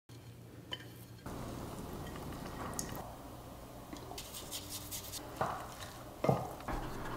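A wooden spoon stirring and scraping dumpling filling in a ceramic bowl, with a few sharp clicks and two louder knocks of the utensil against the dish near the end.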